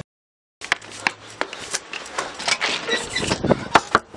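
About half a second of silence, then a rapid, irregular run of clicks and knocks from a handheld camera being moved about.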